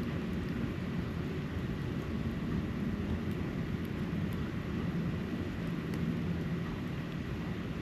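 Steady low outdoor rumble with a slowly wavering low hum, typical of distant traffic. A faint steady high tone and a few faint light ticks sit on top.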